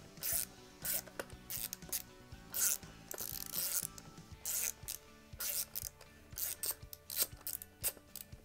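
Ratcheting hand driver clicking in short, irregular bursts as a hex bit unscrews the stock bolt inside a wooden rifle buttstock.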